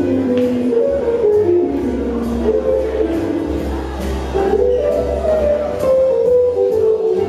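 Live swing jazz band playing: a melody line moving over low bass notes, with a steady beat of strokes on the drums.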